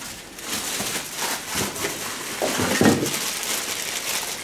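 Thin plastic packaging bag crinkling and rustling as it is handled and unwrapped from a power adapter, with a couple of louder handling noises about one and a half and three seconds in.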